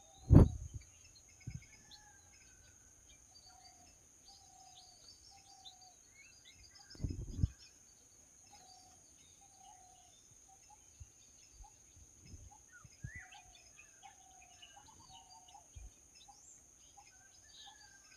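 Small birds chirping, with one short call repeated about once a second and a steady high whine behind them. A loud thump comes about half a second in and another around seven seconds in.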